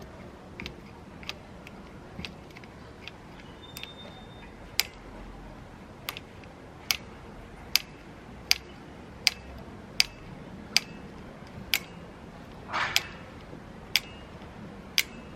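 Caulking gun trigger clicking over and over, about once every 0.8 seconds, as sealant adhesive is squeezed from its cartridge; the clicks get louder about five seconds in. A short scraping rustle comes near the end.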